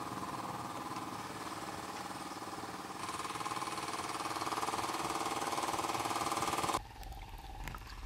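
A small engine running steadily with a rattling drone, getting louder about three seconds in and cutting off abruptly near the end.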